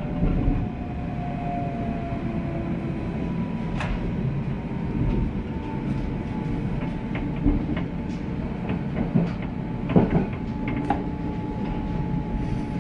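Berlin S-Bahn train heard from inside the carriage as it runs into a station: a steady rumble of wheels on rails with scattered clicks over the track, and a motor whine falling slowly in pitch as the train slows. There is a louder knock about ten seconds in.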